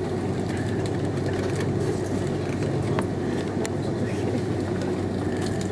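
Cabin noise aboard an Airbus A330-300 taxiing: the engines' steady low hum and airflow drone, with a few faint clicks and rattles.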